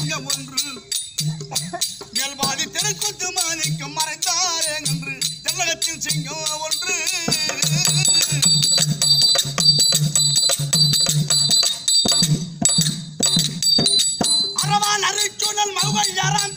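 Therukoothu folk-theatre music: a voice singing a wavering melodic line over a steady beat of hand drums and jingling metal percussion. The singing drops out about seven seconds in, leaving the drums and jingling to run on, and comes back near the end.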